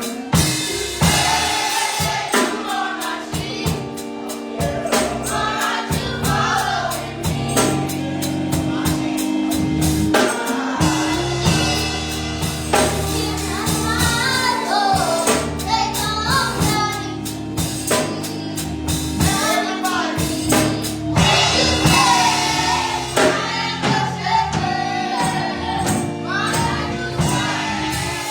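Children's choir singing a gospel song over a band backing with a steady drum beat.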